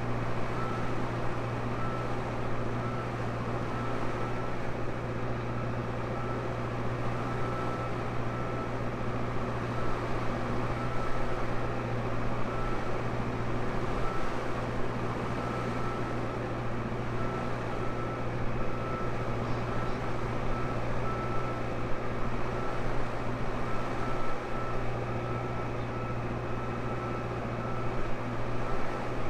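Tractor engine running steadily under load, a constant low hum with a faint steady high whine over it.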